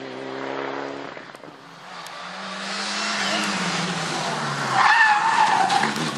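Mitsubishi Lancer Evolution rally car's turbocharged four-cylinder engine running under throttle, then its tyres squeal loudly for about a second, about five seconds in, as the car turns sharply through a junction.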